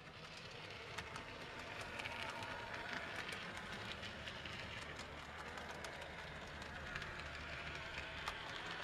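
A 1/76-scale (OO gauge) model London tram running along the layout track: a steady small-motor whir and rumble with scattered light clicks.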